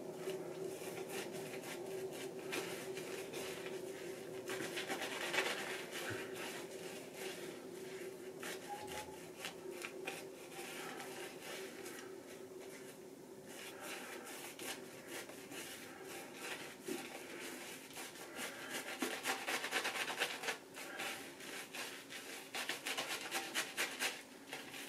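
Boar-bristle shaving brush swishing and scratching over stubble in quick strokes as it builds a thick lather of shaving soap on the face, getting louder near the end.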